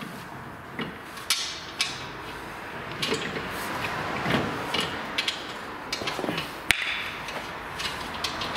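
Irregular metallic clinks and knocks of tools and steel suspension parts being handled while a front lower control arm is fitted to the steering knuckle, with one sharper knock about two-thirds of the way through.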